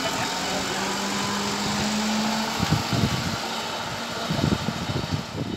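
Truck engines running, with a steady low hum through the first half and rougher, uneven engine noise in the second half.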